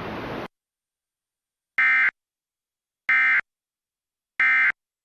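Emergency Alert System end-of-message data signal: three identical short bursts of digital modem tone about a second and a quarter apart, marking the end of the alert. A faint hiss cuts off about half a second in, just before them.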